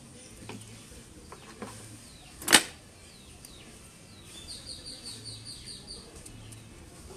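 Small metal clicks from hand tools and copper filigree wire being worked, with one sharp click about two and a half seconds in. A little past halfway, a bird chirps in a quick run of short, high notes.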